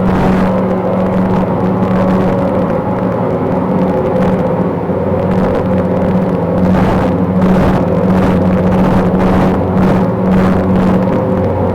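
Steady, continuous droning hum with a strong low pitch and a stack of overtones, motor-like, with short hissing surges over the second half. The recordist, who likened it to a motor glider or a lawn mower, takes it for the solar storm striking Earth's magnetic field and suggests high-voltage power lines as a possible source.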